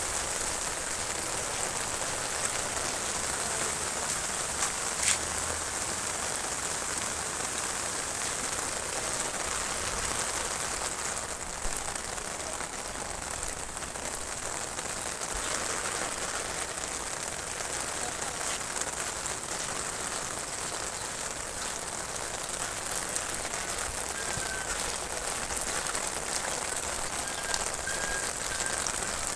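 Steady rush of water from a canal carrying runoff after a tropical storm.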